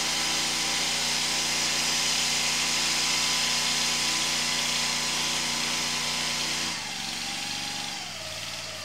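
Sewer hydro-jetter's engine-driven high-pressure pump running steadily at full throttle with a strong hiss. About seven seconds in it throttles down: the pitch falls and the hiss eases.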